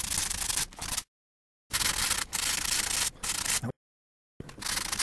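Hand sanding with a sanding block on a cured UV-curing resin and fiberglass patch, in quick back-and-forth strokes with a light touch, to fair the patch smooth. The sanding is broken twice by brief dead-silent gaps.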